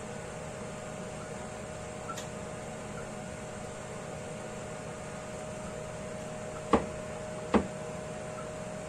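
Kitchen range hood fan running with a steady hum and a faint steady tone. Two sharp knocks come close together about two-thirds of the way in.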